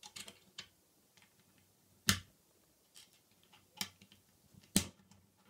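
Plastic K'NEX rods and connectors being snapped together and handled: a few light clicks, then three sharp snaps, about two seconds in, just under four seconds, and near the end, with softer ticks between.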